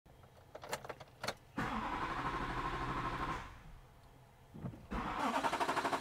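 Two short clicks, then a 2005 GMC Duramax diesel (6.6-litre V8) being cranked by its starter with a rapid, even pulsing for about two seconds, stopping, and cranking again from about five seconds in without the engine catching: the truck's crank-no-start fault, blamed on a leaking fuel filter head drawing air into the fuel system.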